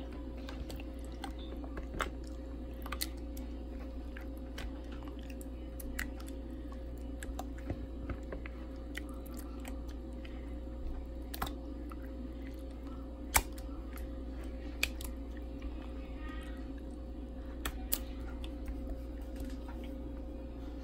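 A hand squishing and turning raw flounder fillets in a wet egg-and-mayonnaise batter in a plastic bowl. There are scattered sharp clicks and taps, the loudest about 13 seconds in, over a steady low hum.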